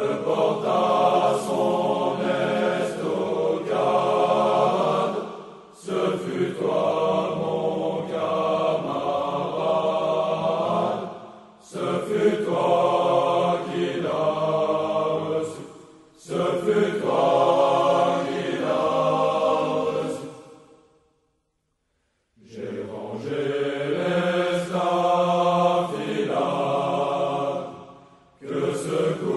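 Unaccompanied voices singing a slow French scout song in long phrases broken by short breaths, with a clear pause of about a second and a half roughly two-thirds of the way through, between verses.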